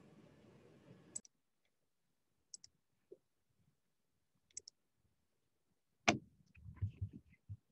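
Sparse faint computer-mouse clicks a second or two apart, then a sharper knock about six seconds in followed by a few low thumps of handling at the desk.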